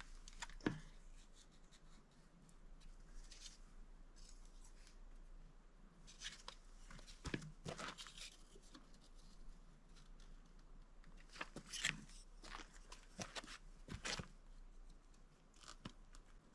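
Scattered faint knocks, clicks and scrapes of timber and hardware being handled and fitted, coming in small clusters.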